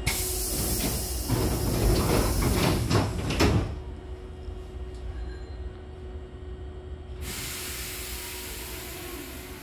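Hankyu 6000-series train's double sliding doors closing, a rushing, rattling slide that ends in a thump about three and a half seconds in. A steady hiss starts about seven seconds in.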